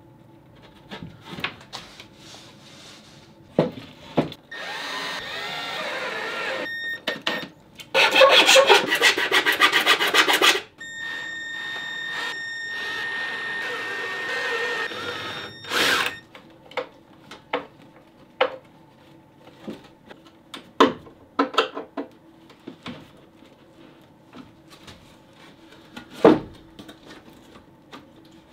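Cordless drill driving screws into pallet wood in three runs of a few seconds each in the first half. The middle run is the loudest and rattles, and the last carries a steady whine. Before, between and after them come knocks and clatter of wooden boards being handled.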